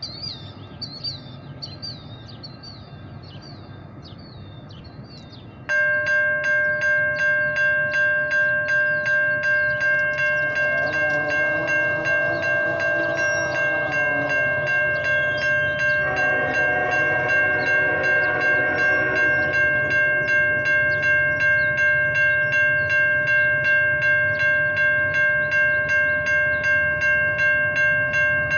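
Railroad grade-crossing warning bell starts about six seconds in, ringing in a fast, even pulse as the crossing gates come down. Over it, the horn of an approaching Norfolk Southern freight locomotive sounds two long blasts. Birds chirp before the bell starts.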